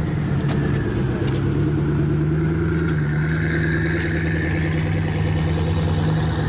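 A car's engine running steadily with a deep, even note.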